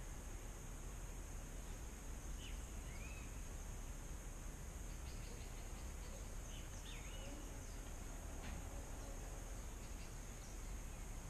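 Forest ambience: a steady high-pitched insect drone, with a few short bird chirps scattered through it over low background noise.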